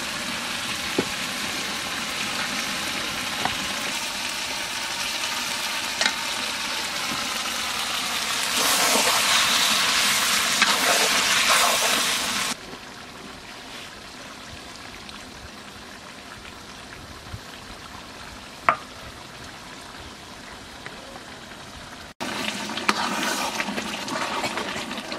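Chicken curry and potatoes sizzling and frying in a black iron wok, with a few knocks of the metal stirring ladle. The sizzle grows louder about a third of the way in, drops suddenly to a quieter sizzle about halfway, and jumps up again near the end.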